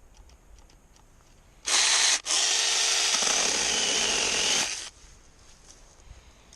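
Small battery-powered mini chainsaw (Drill Pro cordless chain saw) running: a short half-second burst, a split-second stop, then about two and a half seconds of steady running that cuts off suddenly.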